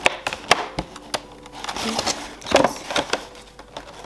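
Cardboard candy gift box being pulled open by hand: a run of crackles and snaps as the cardboard flexes and tears, loudest about two and a half seconds in.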